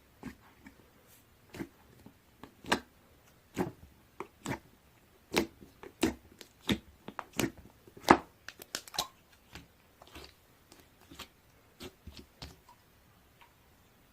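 An irregular series of sharp taps and clicks, a couple of dozen in all, coming faster and louder in the middle and thinning out towards the end.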